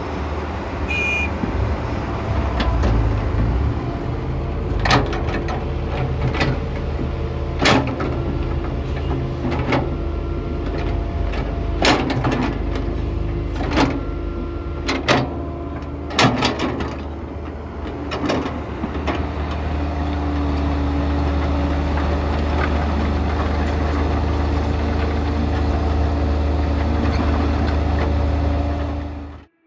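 Kobelco SK120-1 excavator's diesel engine running, with a series of sharp knocks and clanks over the first two-thirds as it works the bucket and load. From about twenty seconds in the engine runs steadier and a little louder.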